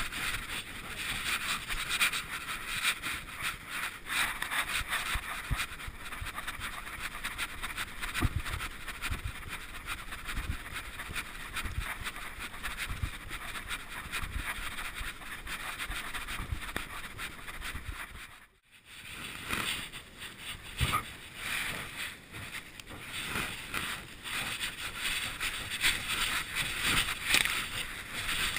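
Rubbing and scraping noise from a GoPro mounted on a German shepherd as the dog moves through long grass: a steady rustling hiss with frequent small knocks, which drops out briefly just past the middle.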